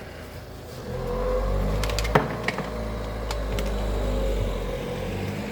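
A neighbouring motor vehicle's engine running with a steady low drone that swells about a second in. Several sharp clicks and knocks sound over it, the loudest about two seconds in.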